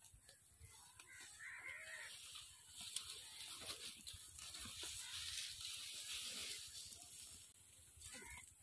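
Faint outdoor rural sound: a few soft animal calls about a second in, then a soft rustling hiss for a few seconds in the middle.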